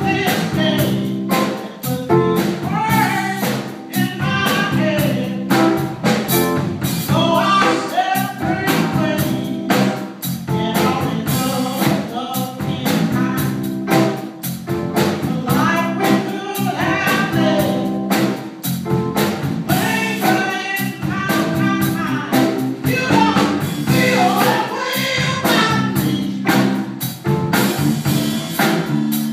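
Live blues band playing a song, a woman singing lead over drums, bass and guitar with a steady beat.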